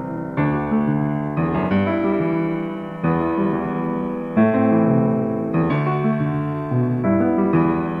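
Solo piano music, a slow piece with notes and chords struck afresh every half second to second, each ringing and decaying before the next.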